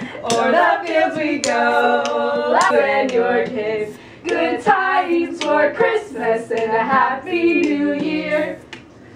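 A small group of mostly female voices singing a Christmas carol together, unaccompanied. The singing stops about half a second before the end.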